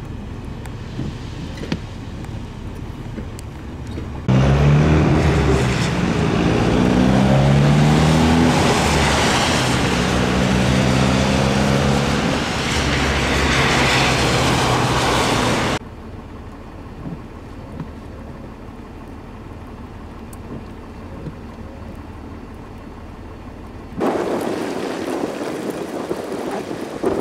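Vehicle engine running and revving, its pitch rising and falling, over a loud rushing noise, heard between quieter stretches of outdoor traffic noise; wind buffets the microphone near the end.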